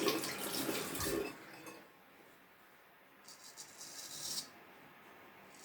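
Clinking and handling clatter of small hard objects, then a pause, then a few soft, dry scraping strokes.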